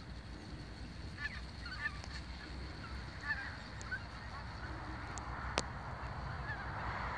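A flock of geese honking as it takes off and flies over, with a cluster of short calls in the first half, over a steady low background rumble.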